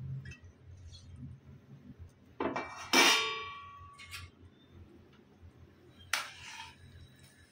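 Stainless steel plate set down on the stovetop: a short scrape, then a ringing metallic clang about three seconds in that fades over a second. A brief scrape about six seconds in as a spatula goes into the pan.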